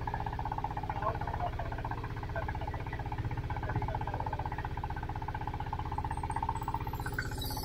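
A boat's engine running steadily while the boat is under way, with a fast, even beat.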